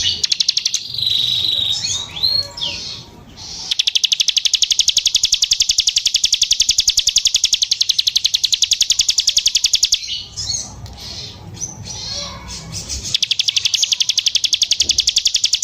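Plain prinia singing: long, fast, buzzy trills of evenly repeated notes, with shorter varied chirps between the trills.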